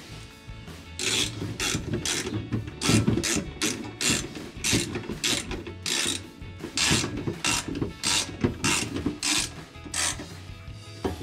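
Hand socket ratchet clicking in repeated short strokes, about two a second, starting about a second in, as a running-board bracket bolt is wound in.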